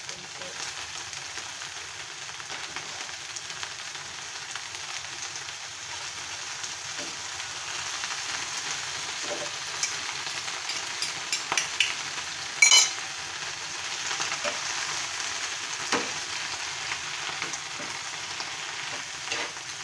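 Pechay (bok choy) leaves sizzling in a hot frying pan while being stirred, with a steady frying hiss. A spatula scrapes and clacks against the pan a few times around the middle, the loudest knock about two-thirds of the way through.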